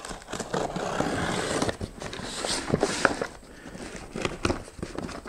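A cardboard shipping box being opened by hand: a sustained rip of packing tape or cardboard tearing for about a second and a half, followed by scattered scrapes, clicks and rustles of the cardboard flaps being handled.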